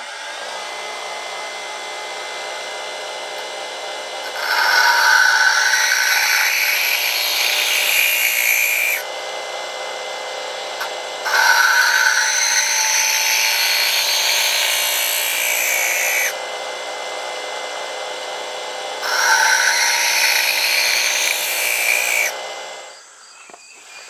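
A bench grinder runs steadily while a steel rebar awl is pressed to the grinding wheel in three loud, harsh passes of about four to five seconds each, grinding a point onto it. Near the end the grinder is switched off and the sound dies away.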